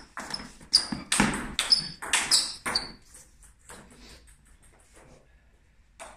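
Table tennis rally: the plastic ball strikes the bats and the table about six times, roughly two hits a second, each with a short ringing ping. After about three seconds come fainter, quickening ticks as the ball bounces to rest on the floor.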